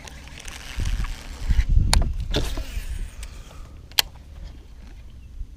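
A baitcasting rod and reel being handled, with a rustle of handling and wind noise and a few sharp clicks, the sharpest about four seconds in.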